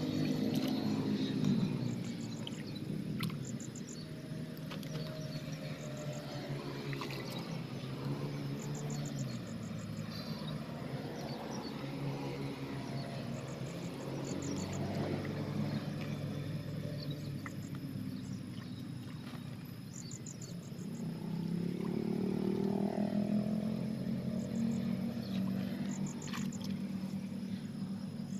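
Crickets chirping in short trains of rapid high pulses, repeating every second or two, over a louder low droning hum whose pitch wavers up and down, with a few sharp clicks.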